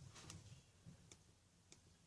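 Near silence with three faint clicks, the clearest about a second in and near the end.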